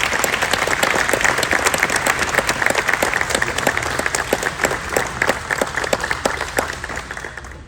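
Audience applauding, a dense mass of hand claps that fades out near the end.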